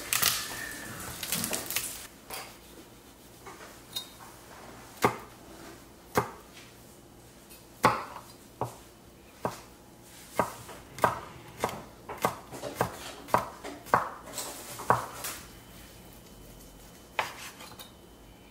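Knife chopping on a cutting board: about fifteen sharp, irregular knocks, sparse at first, then quicker at roughly two a second through the middle, with a last one near the end.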